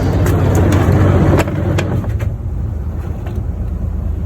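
Fishing boat's engine running with a steady low rumble, with scattered sharp clicks and knocks. The rumble drops somewhat about a second and a half in.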